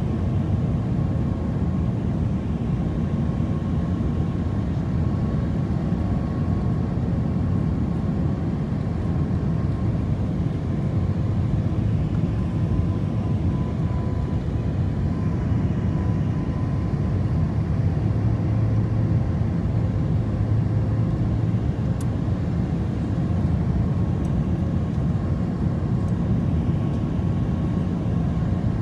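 Jet airliner cabin noise on final approach, heard from a window seat by the engine: a steady low rumble of engines and rushing air with a faint steady high tone.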